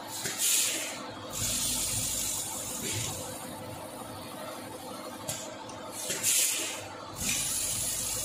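Vertical granule bag packaging machine running with a steady mechanical hum. A sharp burst of compressed-air hiss comes about half a second in and again about six seconds in, each followed by a longer, softer hiss as its pneumatic cylinders cycle.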